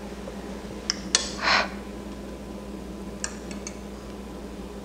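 Metal cake server and cutlery clinking and scraping on a plate: two clicks and a short scrape about a second in, then three light clinks around three seconds in.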